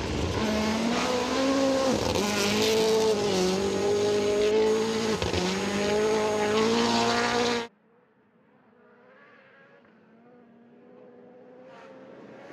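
Rally car engine at high revs, its pitch rising and falling through gear changes. It cuts off abruptly about seven and a half seconds in. A faint, distant engine then slowly grows louder.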